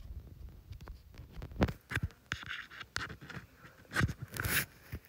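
Faint scratching and clicking of a charging cable being fumbled at an iPad's charging port, with a louder scrape about four seconds in.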